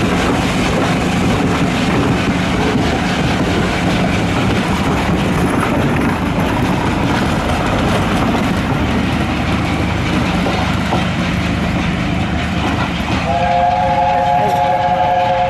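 Passenger carriages rolling past close by, then, about thirteen seconds in, the LNER A4 locomotive 60007 Sir Nigel Gresley at the head of the train sounding its chime whistle: several steady tones together, held to the end.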